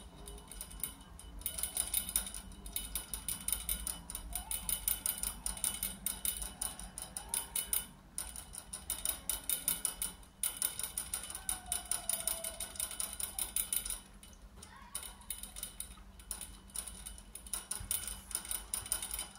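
A young rabbit drinking from a hanging water bottle, licking the metal spout so that it clicks in a fast, steady run. The clicking stops briefly a few times.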